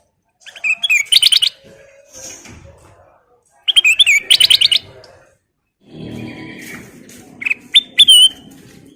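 Kutilang emas, a bulbul, singing in short bursts of rapid, loud whistled and chirped notes: two phrases about three seconds apart, then a few sharp chirps near the end over a low, rough background noise.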